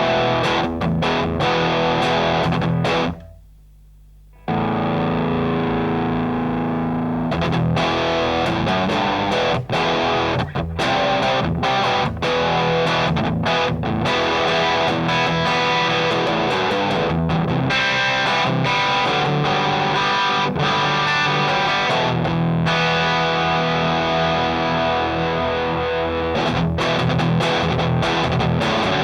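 Electric guitar played through a Rullywow Plexicruise, a Marshall-voiced distortion pedal: distorted riffs and chords with sharp pick attacks. The playing stops briefly about three seconds in, then resumes.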